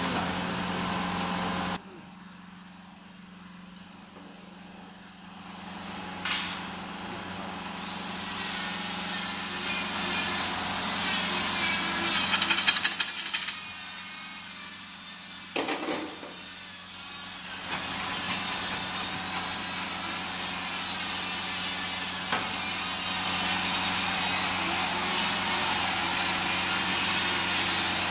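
DST-40C ice cream wafer cone machine running: a steady hum that drops away abruptly about two seconds in, then builds again into a hiss with a high, wavering whine from about eight seconds on. Two sharp clacks come about six and sixteen seconds in.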